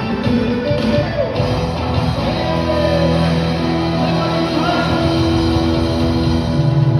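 Live worship band playing an instrumental passage with guitar, sustained chords and a steady low end.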